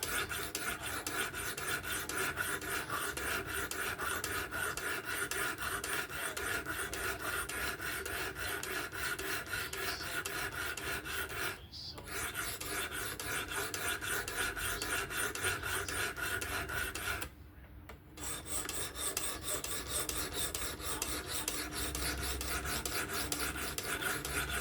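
Sharpening stone on a Work Sharp Professional fixed-angle sharpener rasping back and forth in quick, steady strokes across a Spyderco Kapara's S30V steel blade. There is a brief pause a little under halfway through and another, slightly longer one about two-thirds of the way in.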